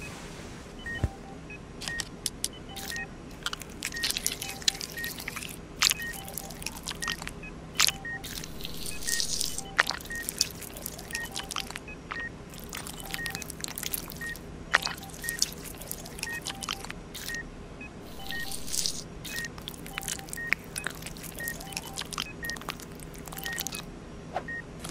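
Regular electronic beeping, a little faster than one beep a second, in the manner of a hospital heart monitor, over a low steady drone. Scattered wet squelches and sharp clicks come from the fruit and instruments being handled.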